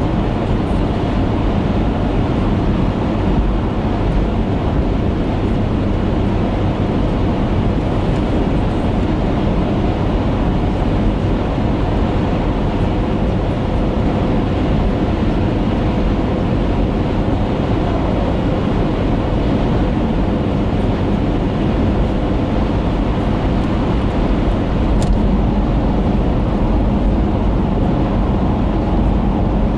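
Steady road, tyre and engine noise inside a moving car's cabin, picked up by a windscreen-mounted dashcam. A faint steady hum runs through it.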